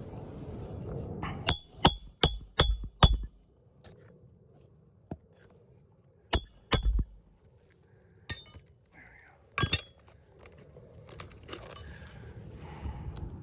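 Hammer driving roofing nails into asphalt shingles: a run of five quick strikes, then two more, then a couple of single strikes, each with a short metallic ring.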